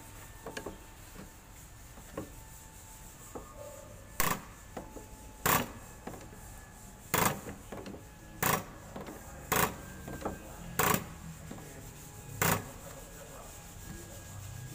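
Diesel injector nozzle from a Komatsu PC200-6 engine spraying on a hand-lever pop tester: seven sharp, hissing bursts about every second and a half, one for each pump of the lever. The nozzle is leaking, which is put down to it not having been cleaned with sandpaper first.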